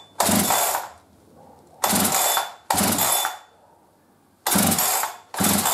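Husqvarna 372XP two-stroke chainsaw being pull-started: the recoil starter cord is yanked five times in quick succession. This is a cold first start with the choke on and the decompression valve pressed, and the engine does not yet fire between pulls.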